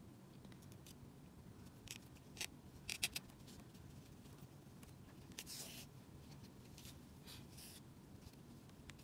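Faint handwork noise: a few light, sharp clicks two to three seconds in, the loudest a quick run of three, then soft rustles of yarn and crocheted fabric being handled.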